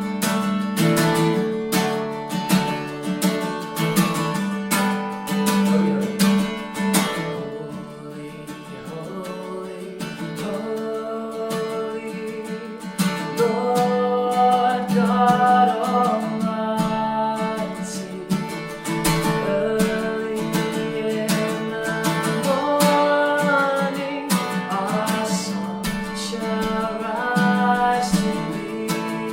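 Acoustic guitar strumming the accompaniment to a worship song. A melody line rises and falls over the chords in the middle stretch.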